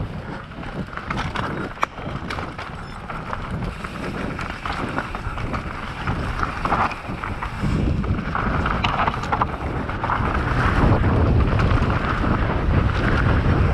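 Wind buffeting an action camera's microphone as a mountain bike descends a dirt trail at speed, with tyres rolling over dirt and roots, the bike rattling, and sharp knocks from impacts on the rough ground. The wind rumble grows louder from about eight seconds in.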